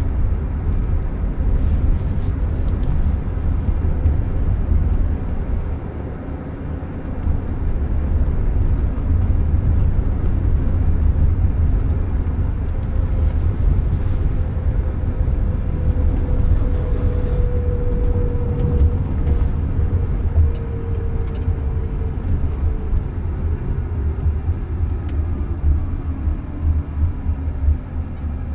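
Road and tyre rumble inside the cabin of a Jaguar I-Pace electric car on the move, a steady low noise with a faint whine that slowly falls in pitch in the second half.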